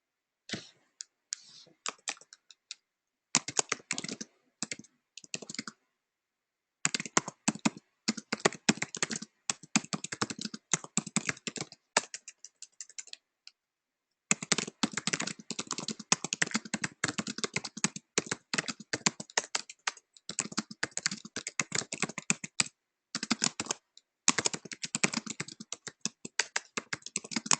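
Typing on a computer keyboard: runs of rapid keystrokes broken by brief pauses.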